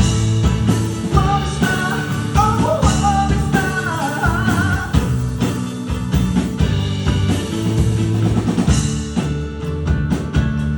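A band playing a rock song live: drum kit, bass and guitars, with a sung vocal line from about one second in to about five seconds in.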